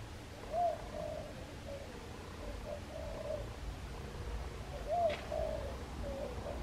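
A dove cooing: two phrases about four seconds apart, each a rising-and-falling first note followed by a few lower, flatter coos.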